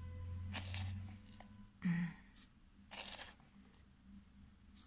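A red plastic spoon scooping dry sodium chloride crystals out of a plastic jar, three short gritty scrapes about a second apart as salt is added to a glass on a scale.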